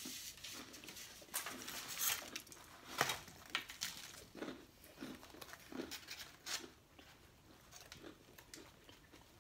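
Eating sounds: chewing and crunching of food, with irregular clicks and scrapes of a plastic spoon in a foam takeout box and the rustle of a paper napkin.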